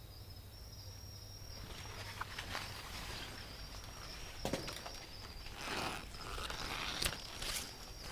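Footsteps pushing through dense dry brush, leaves and twigs rustling and crackling, starting about a second and a half in. Underneath, insects trill steadily at a high pitch.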